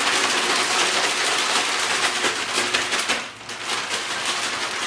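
Two pork cutlets being shaken hard in a resealable plastic bag of seasoned flour to coat them: a rapid, continuous rustling rattle of the bag, with a brief pause a little past three seconds in.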